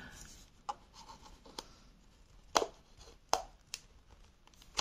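A few sharp clicks and light knocks of hard plastic, about a second apart: a handheld vacuum's clear dust bin being handled and fitted back onto the motor body. The vacuum is not running.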